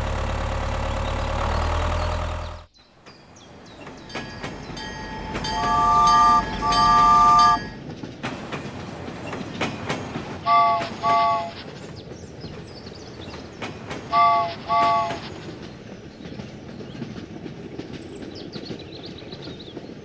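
A tractor engine runs steadily and cuts off after about two and a half seconds. Then a train runs with a rattling sound, and its chord horn blows in pairs: two long blasts, then two pairs of short blasts.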